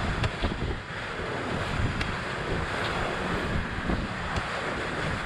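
Stiff wind gusting across the microphone, a rough, fluctuating rumble with a steady rush over it.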